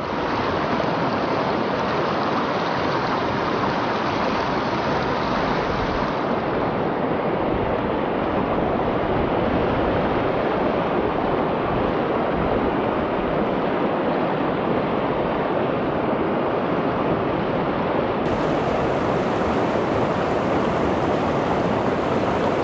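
Steady rush of a mountain river's flowing water, a constant even noise.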